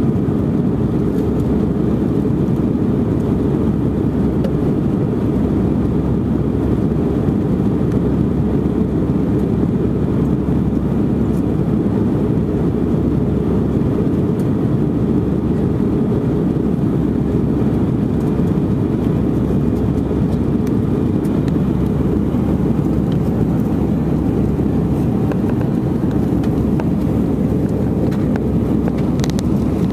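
Steady, loud drone of an Airbus A319's jet engines and airflow heard inside the passenger cabin, an even low rumble that does not rise or fall.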